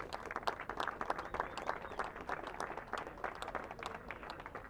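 Crowd applauding, with separate hand claps distinct in an irregular patter that thins a little near the end.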